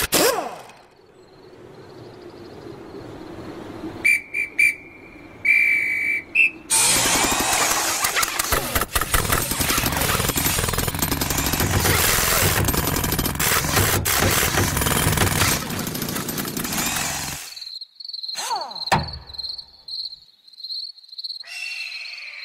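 Cartoon sound effects: two short whistle blasts, then a long loud rushing noise lasting about ten seconds. After that comes an insect chirping steadily at a high pitch, about four chirps a second, crossed once by a brief falling whoosh.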